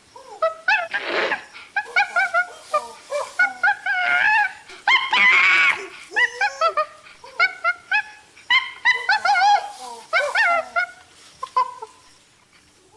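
A rapid series of short, high-pitched animal calls that bend up and down in pitch, with a few longer, harsher calls mixed in; they die away in the last second or two.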